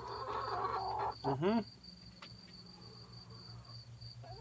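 Hens clucking softly, then one hen gives a single loud squawk that rises and falls in pitch about a second in. Under it an insect trills steadily in a high, pulsing tone.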